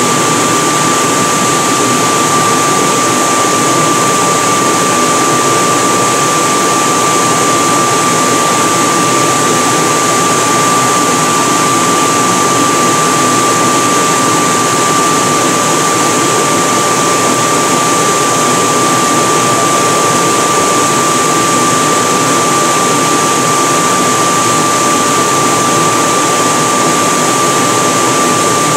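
Electric forge blower running steadily, forcing air into the forge fire: a loud, even rushing with a constant high whine.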